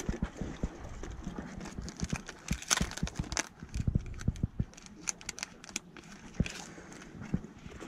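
Close handling noise of fishing tackle: rummaging in a soft tackle bag and fiddling with a plastic-packed sheet of adhesive lead weight seals, irregular clicks and taps with rustling and crinkling between them.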